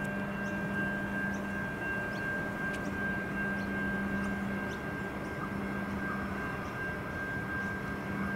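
Adelaide 3000 class diesel railcar approaching, a steady engine drone with a constant low hum and a high whine.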